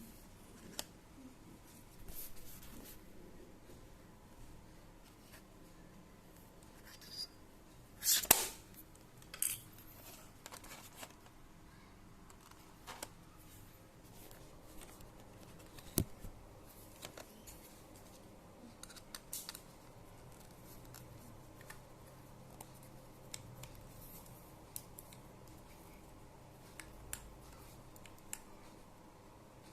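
Scattered clicks, taps and short scrapes of small plastic and metal parts being handled while working on the inside of a laptop. A louder scraping rustle comes about eight seconds in and a sharp click about sixteen seconds in.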